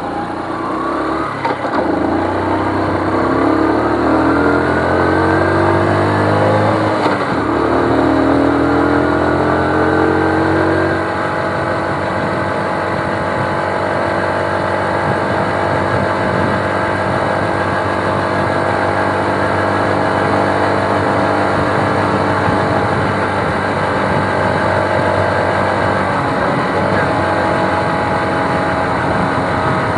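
Small motorcycle engine heard from the rider's seat, pulling away with a rising pitch. The pitch drops suddenly about seven seconds in as it shifts up, climbs again, then settles into a steady cruise from about eleven seconds in.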